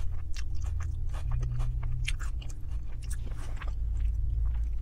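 A person chewing a mouthful of food: a scatter of irregular short clicks and crunches, over a steady low hum.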